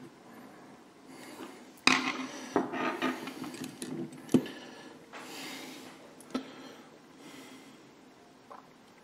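Small plastic and metal scale-model parts (wheel and suspension assembly) being handled and fitted: a run of sharp clicks, knocks and rubbing, the loudest knock about four and a half seconds in, then quieter rustling.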